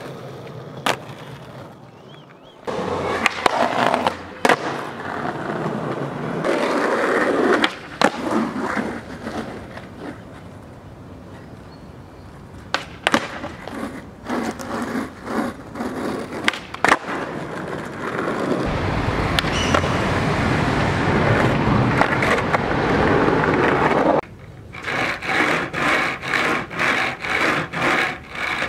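Skateboard wheels rolling on concrete and asphalt, broken by sharp pops and clacks as the board is popped and landed in tricks. A long loud rolling rumble comes in the second half, then a run of evenly spaced knocks near the end.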